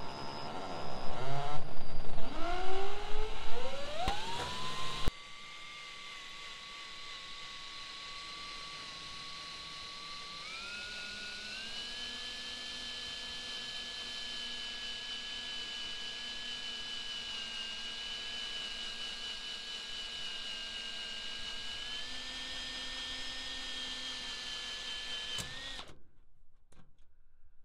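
Cordless drill with a small cutter bit drilling sheet steel to make holes for plug welding. Its motor gives a steady whine that steps up in pitch about ten seconds in and again near the end, then stops. The first few seconds are louder, with a whine rising in pitch.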